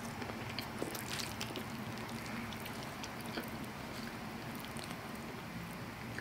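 Soft, wet chewing and mouth sounds with scattered small clicks, then a metal spoon scooping thick, sticky macaroni and cheese out of a cast-iron skillet.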